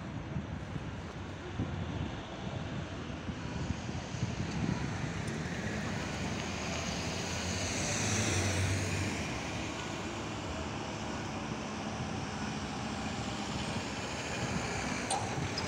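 Road traffic noise at a level crossing, with a vehicle passing close by and swelling to its loudest about halfway through.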